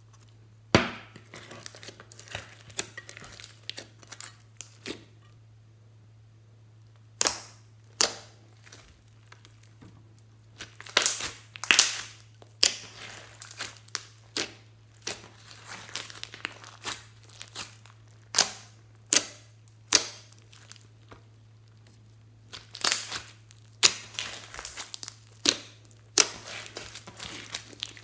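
Hands squeezing, kneading and stretching a large lump of slime mixed with foam beads, making irregular sharp pops, clicks and crackles as air pockets burst.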